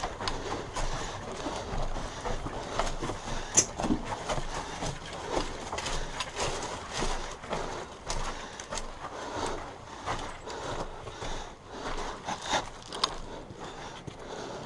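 Footsteps through dry leaves and brush: irregular rustling with scattered snaps and clicks, and one sharp crack about three and a half seconds in.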